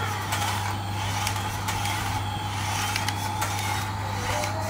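Battery-powered toy Airbus A380 airliner rolling across a tiled floor, its sound module playing a steady electronic jet-engine noise with a constant hum and short gliding tones over its whirring drive motor.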